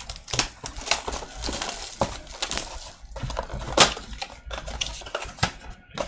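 Plastic shrink-wrap crinkling and tearing off a cardboard trading-card blaster box, with irregular sharp clicks and taps as the box is opened and the card packs inside are handled.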